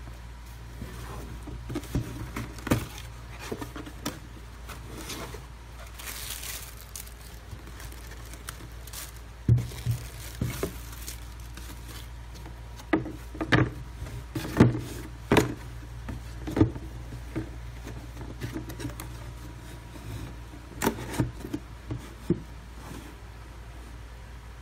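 Cardboard shoebox being handled and opened, with the sneakers lifted out: irregular knocks, scrapes and rustles over a steady low hum.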